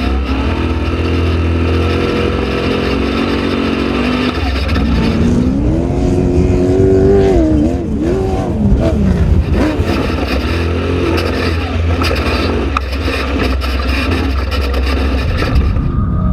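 Off-road race vehicle engine running with a deep rumble, holding a steady note for about four seconds. From about five seconds in the revs rise and fall over and over as it accelerates and lifts off.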